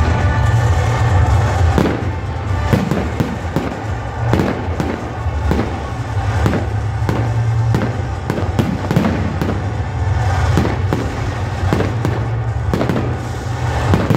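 Aerial fireworks going off: an irregular run of bangs and crackles, several a second, from about two seconds in.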